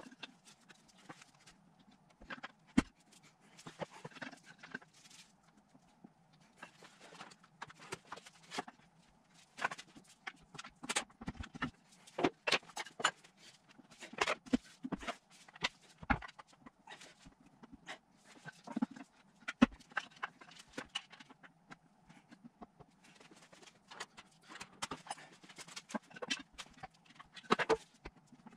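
Hand tools knocking and clinking irregularly against a Nissan RB25 (R30A) gearbox casing, with short rattly stretches in between, while the two casing halves are worked apart.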